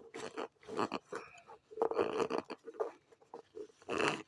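Rubber shock-absorber dust boot being worked onto the strut, with irregular rubbing and squeaking in three short bursts.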